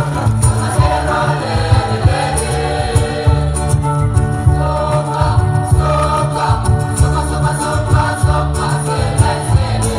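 Mixed school choir singing a song in several voice parts, over a loud, deep bass part that pulses steadily underneath.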